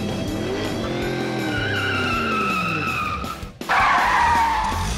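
Inflatable vinyl toy car squeaking as it is pushed and skidded across a hardwood floor, in long rising and falling squeals. A sudden break about three and a half seconds in, then a louder, harsher squeal.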